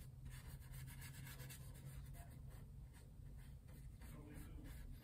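Faint brushing of a small paintbrush on a canvas panel: quick, soft, scratchy strokes and dabs, several a second.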